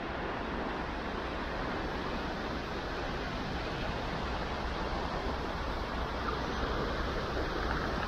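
Sea surf washing steadily onto the beach.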